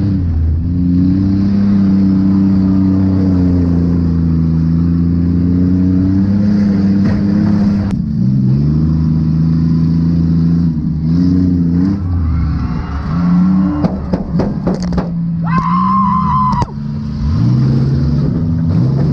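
Car engines revving up and down, their pitch rising and falling, with a few sharp knocks and a brief high-pitched squeal about sixteen seconds in.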